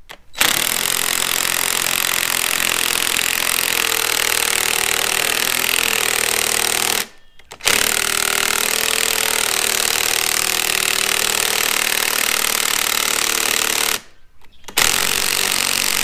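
Cordless impact driver hammering away as it drives a fastener on a chainsaw's mount, in two long runs of about six and a half seconds with brief stops about seven and fourteen seconds in, then starting again.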